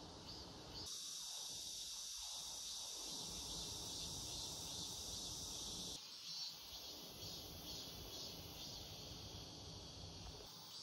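Faint, steady high-pitched insect chirring in the background. It gets louder about a second in and changes character about six seconds in.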